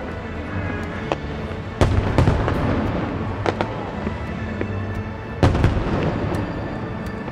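Aerial fireworks bursting, with two heavy bangs, about two seconds in and again about five and a half seconds in, among lighter pops and crackles.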